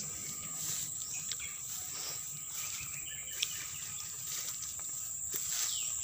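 Steady high-pitched drone of insects, crickets or cicadas, with occasional short bird chirps and one brief click about three and a half seconds in.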